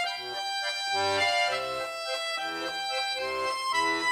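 Instrumental interlude: a melody of held notes over an alternating bass-note and chord accompaniment, pulsing about twice a second.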